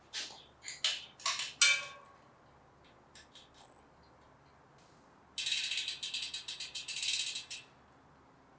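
Bicycle hub freewheel ratcheting as the wheel turns: a dense run of rapid clicks lasting about two seconds, after a few short handling knocks and scrapes at the start.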